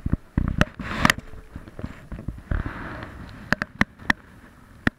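Sharp knocks and taps on an inflatable stand-up paddle board as the paddle shaft and hands bump its deck, a handful of them, several in quick succession about three and a half seconds in, over low sloshing of water around the board.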